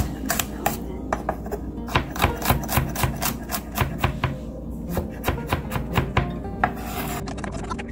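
Chef's knife chopping garlic cloves on a wooden cutting board: a quick, irregular run of knocks, about three to four a second, as the blade hits the board.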